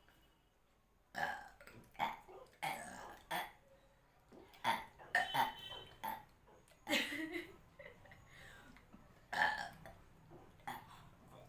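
A person burping again and again, a string of about nine short burps roughly a second or so apart, forced up after gulping water.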